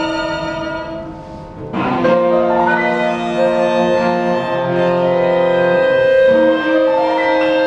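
Violin, cello, clarinet and piano playing contemporary chamber music live. Held notes fade about a second in, then a new chord enters sharply at about two seconds and is held.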